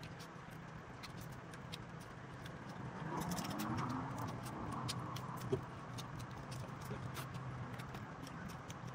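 Cooked crab shells being cracked and picked apart by hand: scattered small clicks and crunches, one sharper crack about halfway through, over a steady low hum.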